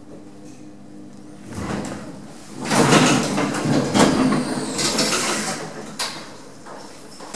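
Power-operated lift doors sliding, with a loud rumbling rattle through the middle and a sharp clunk near the end as they come to a stop.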